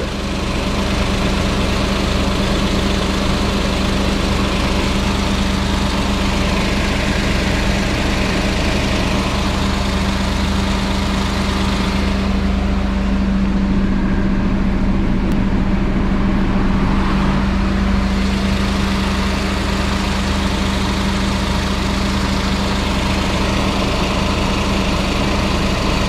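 Mazda AZ-Wagon kei car's 660 cc three-cylinder engine idling steadily with the air conditioning running, a constant low hum. The higher hiss drops away for a few seconds about halfway through.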